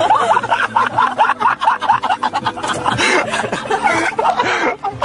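People laughing hard, in quick repeated ha-ha pulses that stop and pick up again partway through.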